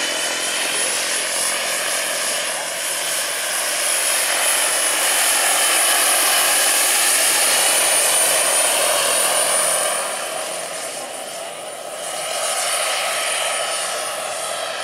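Turbine-powered large-scale radio-controlled Eurocopter EC120 helicopter in flight: a steady high turbine whine over rotor noise. It grows loudest as the helicopter passes close around the middle, with the whine dropping slightly in pitch. It dips briefly near the end and then comes back.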